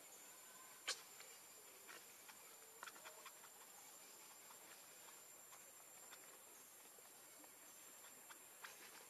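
Near silence: faint hiss with a thin steady high tone and a few faint scattered clicks, the sharpest about a second in and a small cluster around three seconds in.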